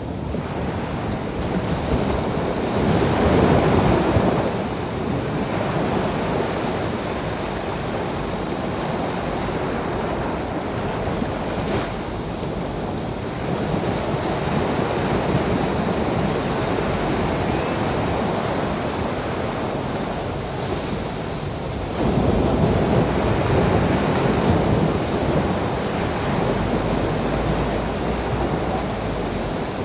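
Ocean surf breaking on a shore: a continuous wash of waves that swells and ebbs, loudest a few seconds in and again in a surge that starts suddenly about two-thirds of the way through.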